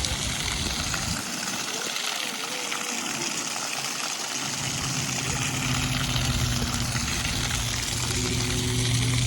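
Running water from a garden fountain, a steady rushing splash, joined about halfway through by a steady low hum.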